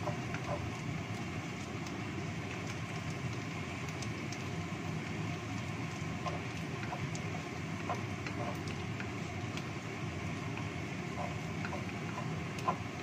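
Sliced shallots sizzling and crackling in hot oil in a wok, with a wooden spatula stirring and scraping the pan; a sharper knock near the end.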